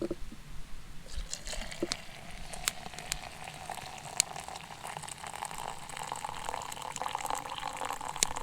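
Water poured steadily into a container, its pitch rising slowly as the container fills, stopping just before the end.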